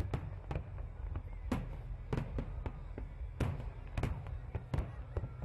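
Aerial firework shells bursting in a display: a string of sharp bangs, spaced irregularly about half a second to a second apart, each trailing off in an echo, over a steady low rumble.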